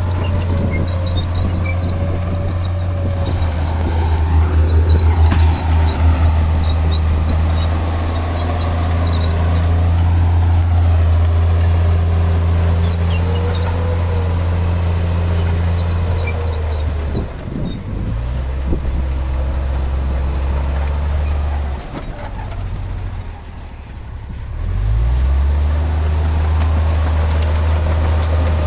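Heavy diesel engine of earthmoving machinery running under load with a steady low drone. The engine note drops about two-thirds of the way in, dips again a few seconds later, then picks back up. A wavering higher whine runs over it through the first half.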